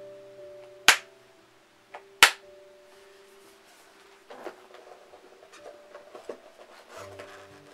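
Two sharp clacks about a second apart as an eyeshadow palette and its box are handled and closed, then soft rustling and knocking as it is put away. Quiet background music with held notes plays underneath.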